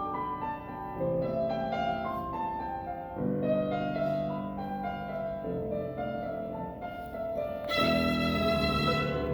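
Piano playing the orchestral accompaniment in sustained chords that change every second or two, then a violin comes in near the end with a bright, held note.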